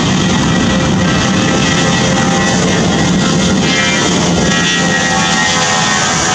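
Jet engines of an Airbus A320-232, IAE V2500 turbofans, running steadily as the airliner rolls along the runway.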